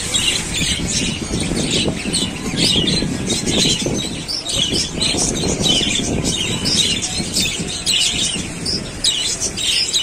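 A flock of caged budgerigars chattering: a constant stream of short, high chirps and warbles from many birds at once. Under the first half there is also a low rumbling noise.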